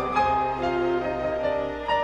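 Grand piano and string quartet playing together in a classical-style chamber piece, with long held string notes over the piano and a new chord coming in near the end.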